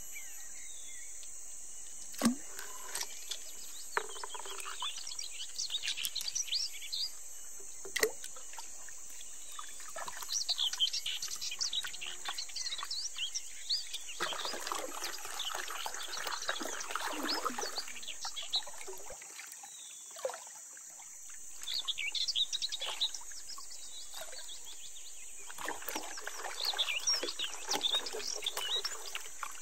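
Water swishing in spells as a wooden gold pan is swirled in a shallow stream, over a steady high insect drone and birds chirping. A couple of sharp knocks near the start, like stones striking.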